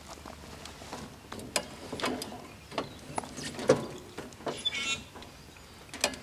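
Hand-built lawn-tractor steering linkage being worked: scattered light metallic clicks and knocks from the spindles, tie rod and heim joints, with a short squeak a little over halfway through.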